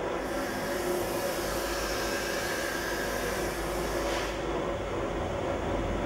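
Hydraulic hose crimping machine's motor and hydraulic pump running steadily, with a hiss over it that stops about four seconds in.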